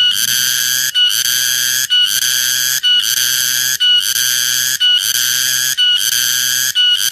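Cicada calling: a loud, shrill buzzing whine repeated in phrases about once a second, each broken off by a short gap.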